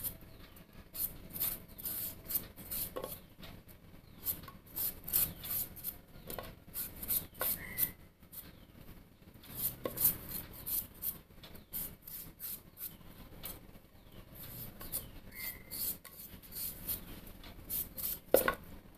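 Kitchen knife shaving the thin skin off a raw chayote (chow chow), a series of short, uneven scraping strokes, a few a second.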